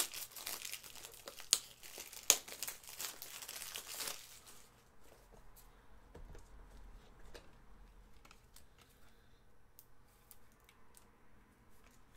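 Trading-card packaging crinkling and tearing for about four seconds, then faint scattered ticks and rustles as cards are handled.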